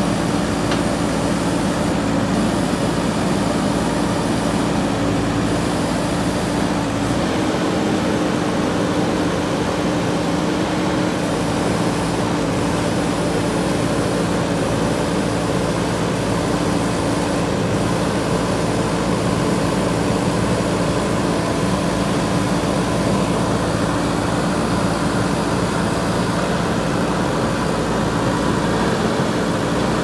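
JCB backhoe loader's diesel engine running steadily under work, a constant hum.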